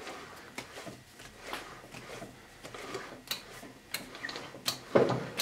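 Metal lathe chuck being spun by hand off its threaded spindle: irregular light metallic ticks and clicks, with a louder knock near the end.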